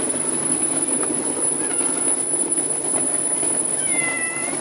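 A cat meows once near the end, a short call falling slightly in pitch, over a steady background hum.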